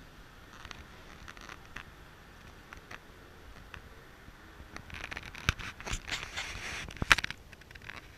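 Close scraping and rustling with scattered sharp clicks, heaviest and loudest from about five to seven seconds in. No engine is heard.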